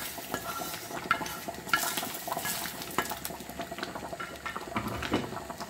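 Wooden spatula stirring dal in a metal pot, with irregular light knocks and scrapes against the pot, over a faint sizzle from the hot fried onion-and-garlic oil just poured in.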